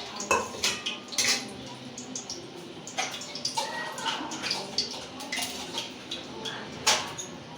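Hot oil sizzling in a kadai, with repeated clinks and scrapes of a metal spatula against the pan.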